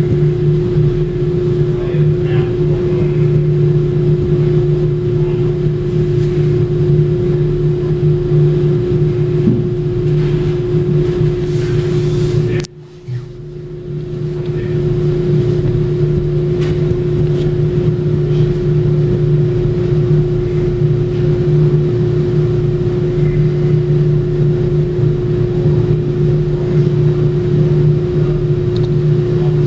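A steady mechanical hum with a constant low tone, cutting out briefly about thirteen seconds in and then resuming unchanged.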